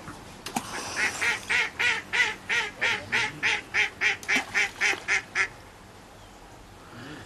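Waterfowl calling: a quick, even run of about fifteen calls, roughly three a second, that stops after about four and a half seconds.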